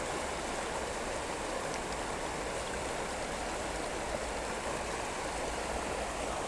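Shallow, fast-flowing river water rippling and babbling steadily over the shallows.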